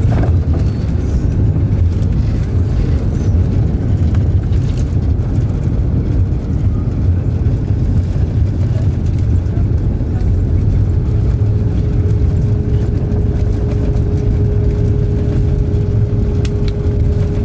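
Airliner cabin noise: the steady low rumble of jet engines and airflow heard from a passenger seat, with a steady whine joining about ten seconds in.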